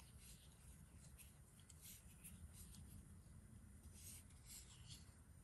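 Faint scraping and small ticks of a hex key turning a screw into a 3D-printed carbon-fibre nylon bracket, tightening its parts together.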